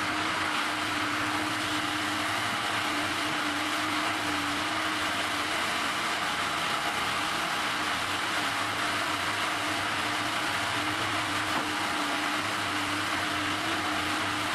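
Caterpillar knuckleboom log loader and its slasher saw running: a steady machine drone with a constant low hum and no break while logs are moved.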